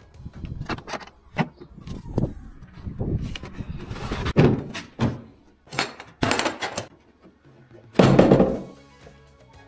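A series of irregular thuds and knocks, the heaviest about four, six and eight seconds in, with background music.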